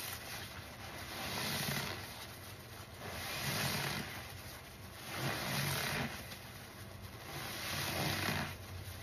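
A soap-soaked sponge squeezed over and over by gloved hands in thick suds: wet squelching and crackling foam that swells with each squeeze, every second or two.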